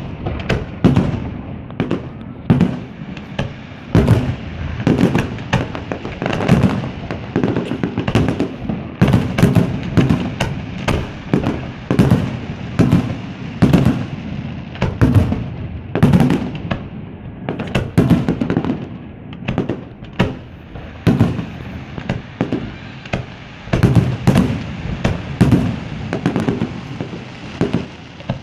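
Fireworks display: many bursts in quick succession, sharp bangs over a continuous low rumble.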